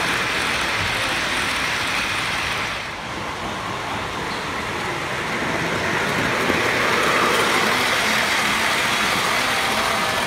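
Model trains rolling along layout track: a steady rumble and clatter of wheels on rail as freight cars pass close by. The sound dips briefly about three seconds in, then builds again.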